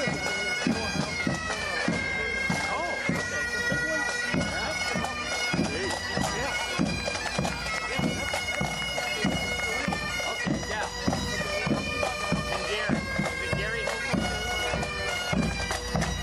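Pipe band playing: bagpipes sounding a melody over their steady drone, with drums keeping a regular beat.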